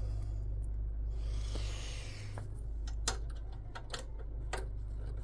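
Light, irregular clicks and taps of small screws, washers and a hand tool as boat hardware is fastened to a hull, after a brief soft rustle, over a steady low hum.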